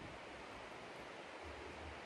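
Steady low hiss of outdoor background noise, with wind rumbling on the microphone, strongest near the end.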